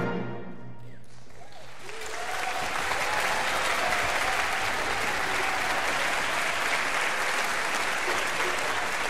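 Audience applauding in a concert hall as the orchestra's final chord dies away in the hall's reverberation; the applause builds over the first two seconds, then continues steadily.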